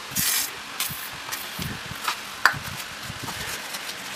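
WD-40 aerosol spray hissing in two short blasts, followed by small clicks and knocks of parts being handled, with one sharp click midway through.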